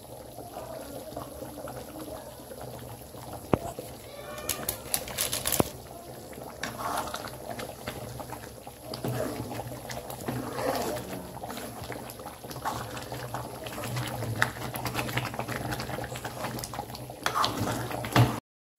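Thick paneer curry bubbling in a steel kadhai while a steel ladle stirs it, with scattered clinks and scrapes of the ladle against the pan over a steady low hum.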